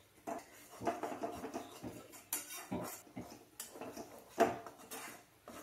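A steel spoon stirring and scraping a thick gongura leaf paste around a metal kadai, in a run of irregular scrapes and knocks against the pan.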